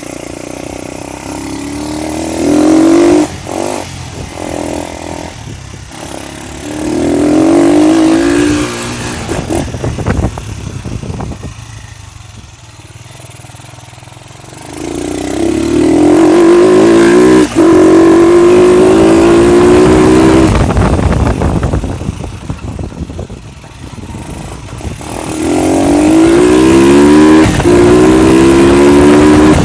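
Honda CG motorcycle's single-cylinder four-stroke engine running with its air filter removed, giving a louder intake roar. It accelerates through the gears: the note climbs in pitch four times, each climb cut off by a shift, with quieter stretches between.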